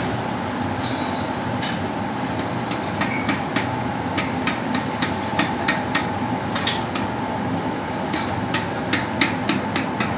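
Hammer tapping a wear sleeve onto a Cummins engine's crankshaft: short sharp taps, sparse at first and coming quicker in the second half, over a steady drone of running machinery.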